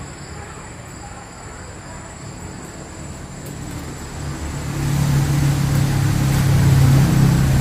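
A motor vehicle's engine with a low hum, growing louder from about halfway through and then holding steady.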